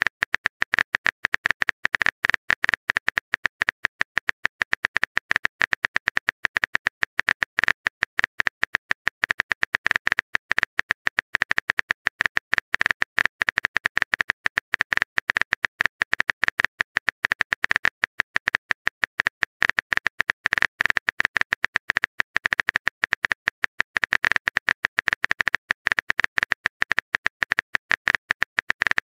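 Rapid, continuous phone-keyboard typing clicks, many a second without a break, as a text message is typed out.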